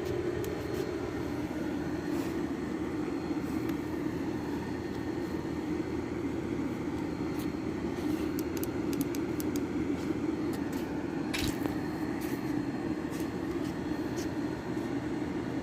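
Air-conditioner compressor humming steadily without starting, a locked-rotor hum drawing about 63 amps, which the technician puts down to a failed capacitor. A few faint clicks and one knock partway through.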